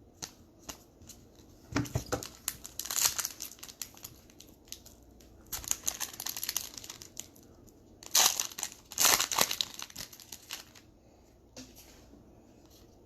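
Trading-card pack wrappers being torn open and crinkled in hand, in three bursts of crackling with short quiet gaps between.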